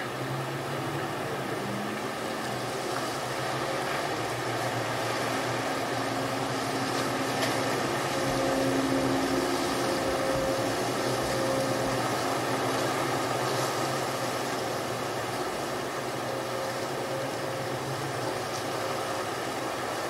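Steady surf noise with a low, steady motor hum under it, growing a little louder near the middle and easing off again.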